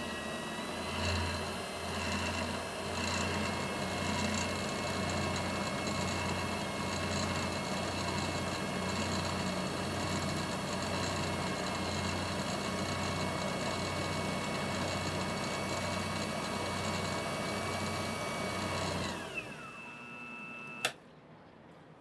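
Wood lathe running steadily with a motor whine while a paper towel is held against the spinning pen blank to apply a CA finish. Near the end the whine falls in pitch as the lathe winds down to a stop, followed by one sharp click.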